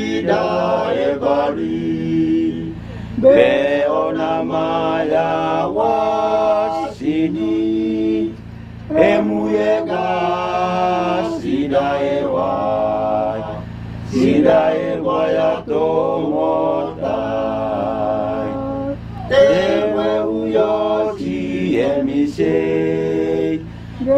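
Voices chanting a song in a local Papua New Guinean language, in sung phrases of about five seconds separated by short breaks.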